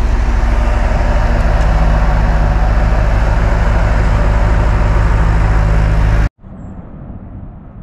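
Skid-steer loader's diesel engine running steadily and loud, close by, with no change in revs. It cuts off suddenly about six seconds in, leaving faint outdoor background.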